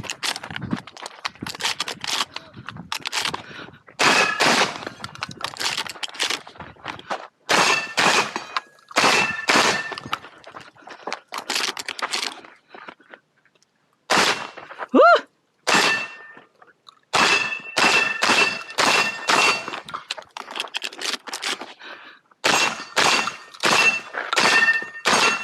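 Shotgun fired in quick strings of shots, several shots followed by a short metallic ring from steel targets being hit. Brief pauses between strings fit reloading.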